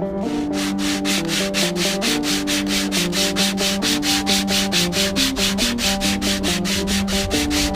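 Sandpaper being rubbed by hand back and forth along a wooden guitar neck to shape it, in quick even strokes of about six a second.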